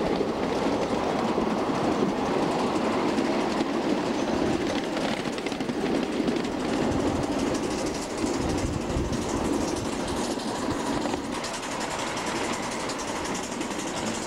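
Ridable miniature live-steam train running along its track, heard from aboard: the steady noise of the wheels rolling on the small rails.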